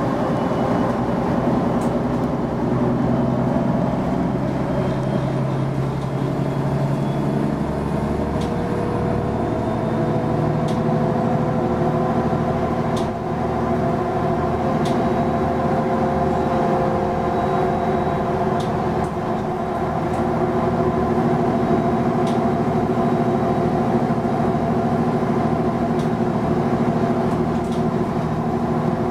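Mercedes-Benz Citaro G articulated bus driving, heard from inside the passenger cabin: its OM 457 hLA inline-six diesel and Voith automatic gearbox drone steadily. The pitch rises a little about eight seconds in, with occasional small clicks and rattles.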